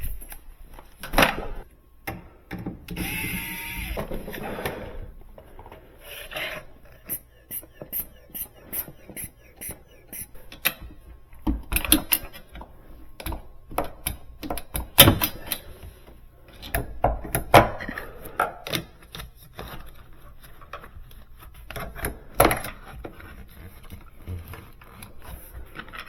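Irregular knocks, clicks and clatter of hands and tools working on a built-in refrigerator, with a short scraping rush about three seconds in.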